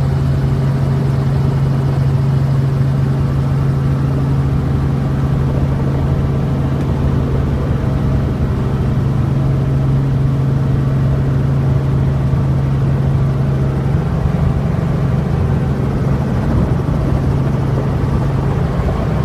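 Helicopter engine and rotor heard from inside the cabin: a loud, steady low drone that turns rougher about two-thirds of the way through.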